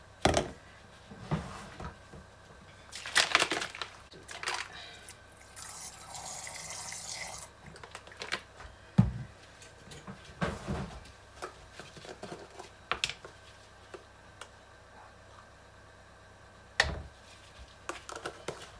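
Scattered knocks and clinks of plastic containers and utensils being handled while colorant is measured into soap batter, with a soft hiss lasting about two seconds around six seconds in and sharper knocks near the middle and near the end.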